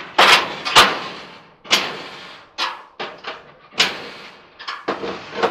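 White-Westinghouse clothes dryer door being swung open and shut repeatedly, about eight sharp knocks and latch clacks, each trailing off briefly: the door and its latch being tested.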